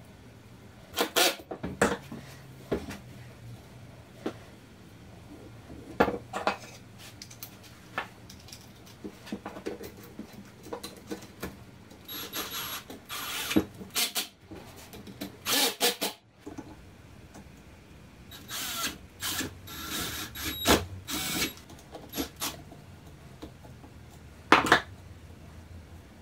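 Metabo cordless drill-driver running in short spurts as it drives screws into aluminium frame brackets, mixed with clicks and knocks of metal parts and tools being handled on a workbench. The driver runs come in several bursts in the middle and second half, and a sharp knock comes near the end.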